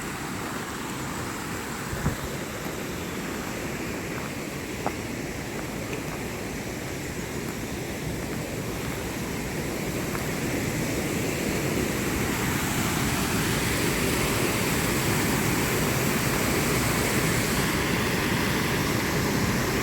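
Waterfall rushing steadily, growing louder from about halfway through, with two light knocks near the start.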